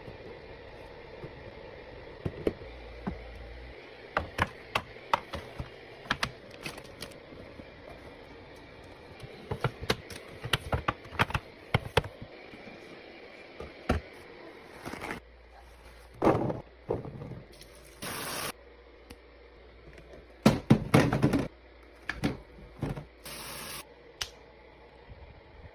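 Items being set down and arranged while a fridge is restocked: a long run of sharp clicks and knocks of containers and packaging, with a few short noisy bursts in the second half.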